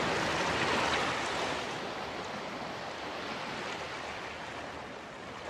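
Steady wash of sea water, like waves on a shore, slowly fading.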